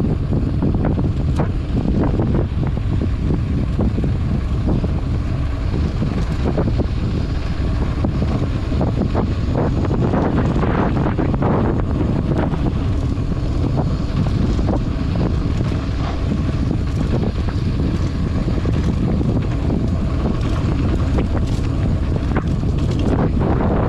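Wind buffeting the microphone while a mountain bike rolls along a dirt trail, over a steady low rumble of knobby tyres on dirt, with scattered brief clicks and rattles from the bike.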